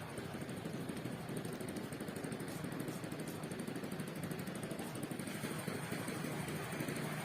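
Steady wind buffeting the microphone, with a fast rattling flutter, over the rush of sea surf.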